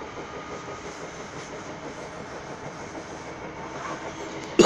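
Inside an electric commuter train running along the line: a steady rumble and rail noise. Near the end, one sharp, loud knock with a short ring after it.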